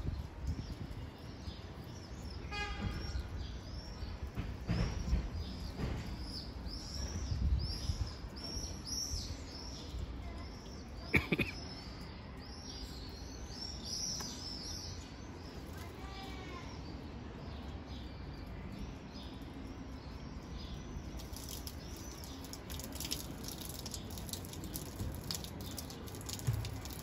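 Small birds chirping in quick, repeated short notes, thick for the first half and thinning out later, over a low steady background rumble. One sharp knock about eleven seconds in.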